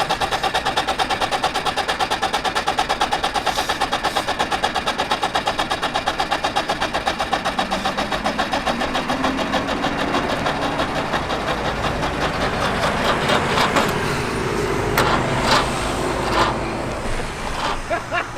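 Trabant's starter cranking the engine without it catching, a fast, even pulsing that weakens and turns ragged after about eight seconds, with a few sharp clicks near the end. It is the sound of a starter on flat batteries.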